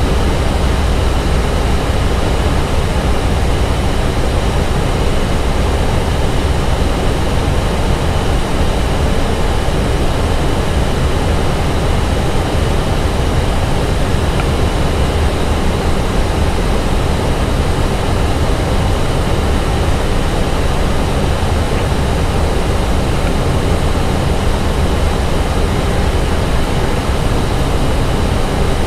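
Airbus A320 cockpit noise on final approach: steady rushing airflow over the nose with a deep, even rumble underneath.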